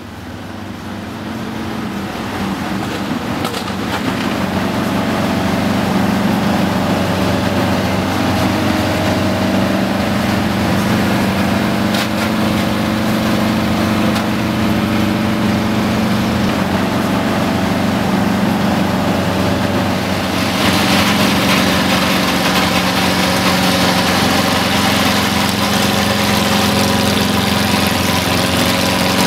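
A vehicle engine idling steadily, fading in over the first few seconds. About 20 seconds in it grows a little louder, with more hiss on top.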